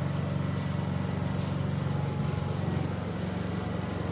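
An engine running steadily with an even, low drone and no change in speed.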